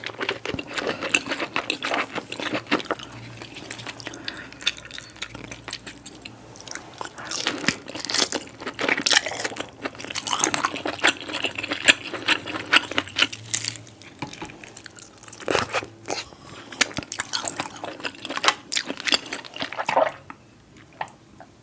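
Close-miked chewing and biting of king crab: wet mouth sounds with many small crunches and crackling clicks, stopping about twenty seconds in.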